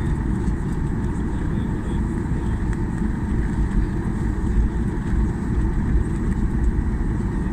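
Boeing 737-800 cabin noise from the CFM56-7B engines and airframe: a steady low rumble with a faint even whine, level and unchanging.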